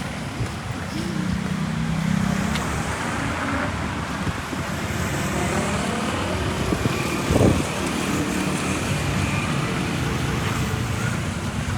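Busy street ambience: steady traffic noise from passing vehicles, with a brief louder burst about seven seconds in.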